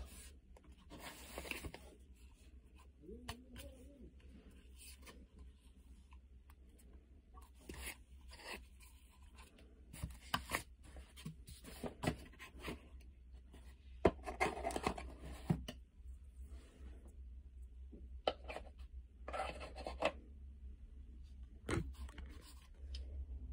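Cardboard box and packaging being handled as a computer mouse is lifted out: intermittent rustling, scraping and soft knocks, over a steady low hum.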